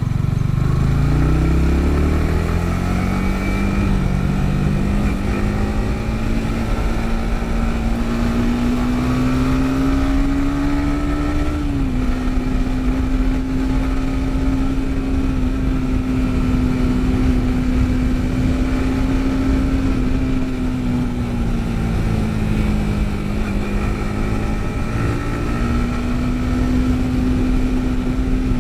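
Yamaha MT-15's 155 cc single-cylinder engine pulling under way. It accelerates hard in the first two seconds, then climbs slowly. About twelve seconds in, the engine note drops sharply at an upshift, then holds steady, eases off a little later and picks up again near the end, over a constant rush of wind and road noise.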